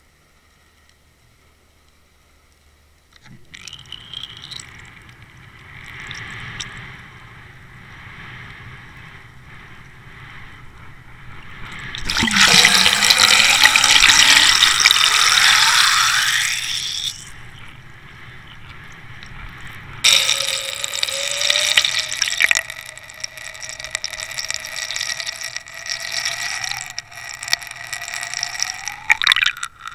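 Water rushing and splashing around a towed Water Wolf underwater fishing camera. It is faint for the first few seconds, loudest for several seconds in the middle as the camera churns through turbulent water, and from about two-thirds of the way in a steady whine runs under the water noise.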